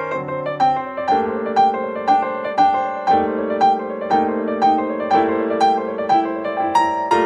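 Background piano music: a steady run of single notes, about two a second, over held chords.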